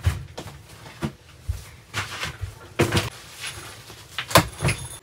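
A string of sharp knocks and clunks, about six, from bags, a box and camper fittings being handled at the door. The loudest are two close together near the end.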